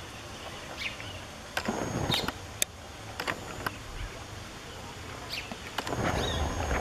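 Camera handling noise in two spells: rustling and bumping with a thin, steady high whine from the lens motor, about a second and a half in and again near the end. A few sharp clicks fall between them over a faint outdoor background.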